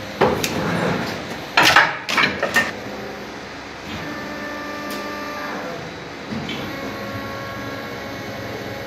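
Electronica 120-ton plastic injection moulding machine running, with a cluster of sharp clacks and clatter in the first three seconds, then a steady machine hum carrying several held whine tones.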